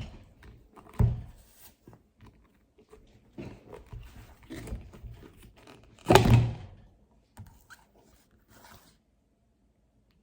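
A few hollow thumps and small clicks of plastic slime tubs being handled and set down. The loudest thump comes about six seconds in.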